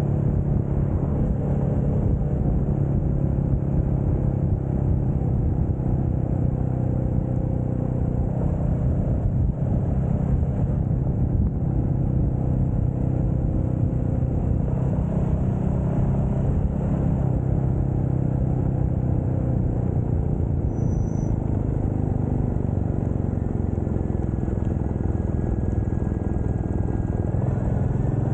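Royal Enfield Meteor 350's single-cylinder engine running at a steady cruise, with wind rumble on the microphone. The engine note eases off slightly near the end.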